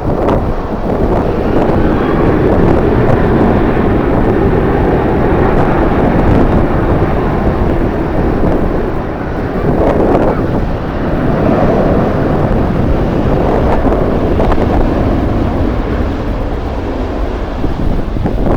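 Strong wind buffeting the microphone in gusts, with the steady noise of a jet airliner's engines underneath.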